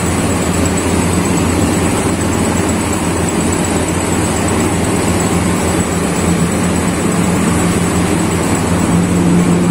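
Air-conditioner outdoor unit running: a steady low hum from the compressor under the even rushing noise of its fan.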